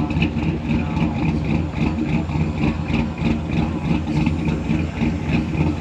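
Car engine idling steadily, with an even pulse about four to five times a second.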